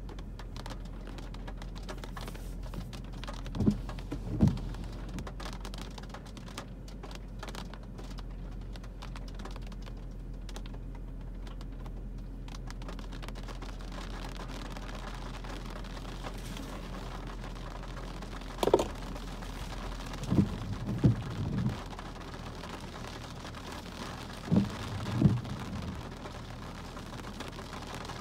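Rain beginning on a car, heard from inside: scattered drops tick on the roof and glass, thickening about halfway through into a steady hiss of rain. A few short, dull thumps stand out above it.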